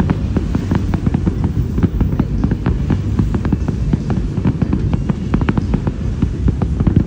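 Fireworks display going off: a dense string of sharp bangs and crackles, several a second, over a low rumble.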